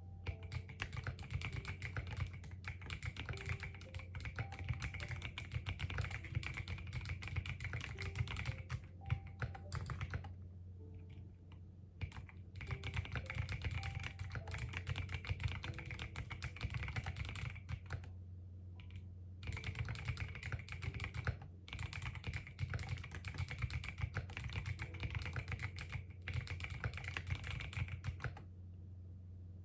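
Typing on a computer keyboard: three long runs of rapid keystrokes, with short pauses about ten and eighteen seconds in, stopping just before the end.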